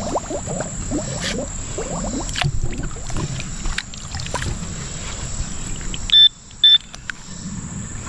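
Digging among creek-bed stones and water, with scraping, knocks and clicks. Near the end come two short, loud, high electronic beeps about half a second apart: the metal detector sounding on the target.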